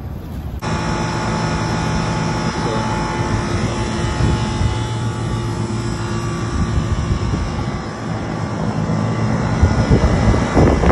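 Steady, loud mechanical drone with a constant hum, starting suddenly just after the beginning.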